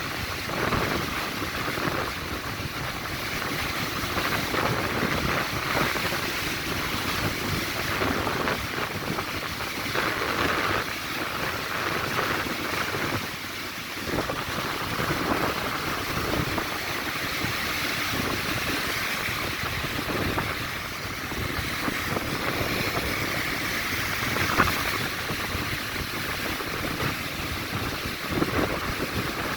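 Strong wind gusting across the microphone over the steady wash of big waves breaking, in a storm.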